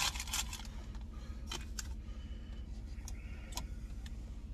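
Steady low rumble inside a parked pickup truck's cab, with a faint steady hum and a few light clicks and taps scattered through it.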